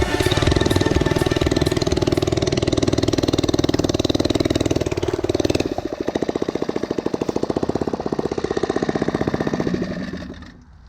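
An engine running with a rapid, even pulse, fading away near the end.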